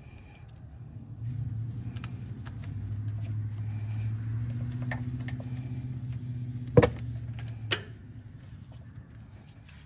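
A low, steady motor-vehicle hum that builds about a second in and fades away near the end, with two sharp clicks close together late on.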